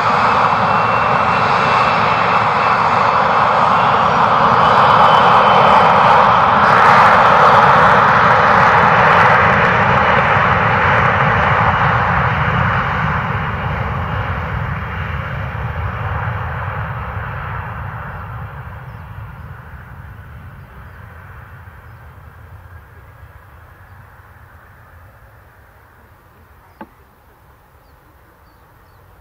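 Embraer ERJ-145 regional jet's twin Rolls-Royce AE 3007 turbofan engines running at high power, a loud rushing noise with a high whine. It swells to a peak and then fades steadily as the jet moves away down the runway. One faint click near the end.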